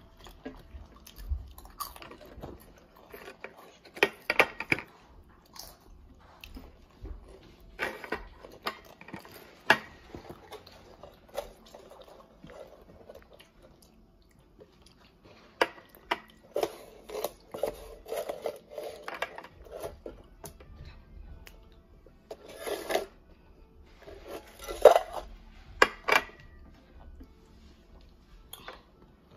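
Pringles potato chips being bitten and chewed, with crisp crunches coming in irregular clusters.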